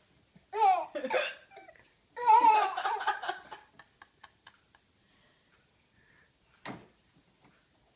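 Two bursts of laughter in the first few seconds, then one sharp hiccup near the end.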